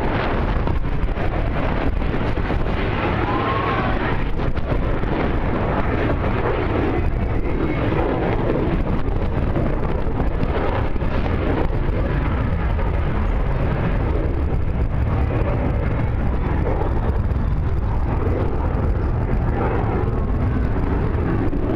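Steady low roar of distant jet aircraft, mixed with wind buffeting the microphone.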